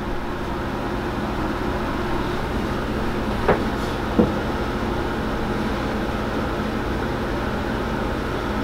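Steady droning background noise, with two light knocks about three and a half and four seconds in as the figure's boxed packaging is handled and turned on a stone slab.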